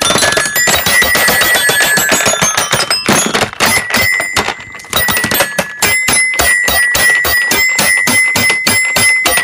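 Toy xylophone's metal bars struck rapidly and repeatedly, each stroke ringing. A fast jumble of strikes pauses briefly a little after three seconds, then settles into a steady run of about four to five strikes a second.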